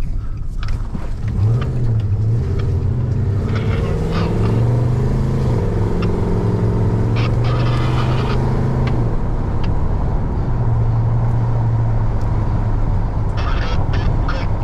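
Pickup truck engine and road noise heard from inside the cab. The engine note rises as the truck picks up speed about a second and a half in, then holds steady. It drops out briefly about two-thirds through and comes back.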